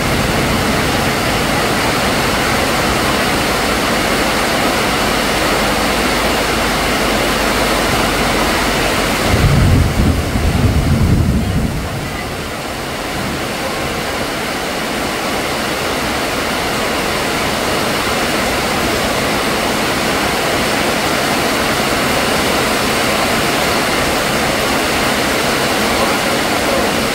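Heavy rain pouring steadily onto a puddled yard and roof, a dense even hiss. About ten seconds in there is a brief louder low rumble lasting a couple of seconds.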